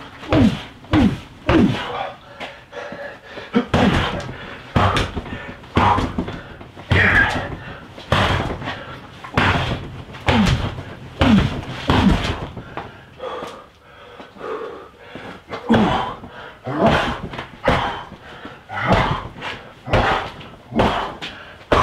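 Strikes thudding into a freestanding torso training dummy over and over, a little more than one a second, the dummy's weighted base knocking as it rocks. Many strikes come with a short grunted exhale.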